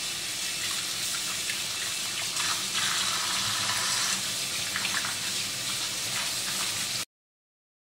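Kitchen faucet running into a stainless steel sink while potatoes are scrubbed under the stream, with faint handling sounds. The sound cuts off suddenly near the end.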